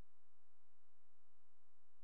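Faint steady electronic hum made of several unchanging tones, the background of the live seismic monitor's audio feed.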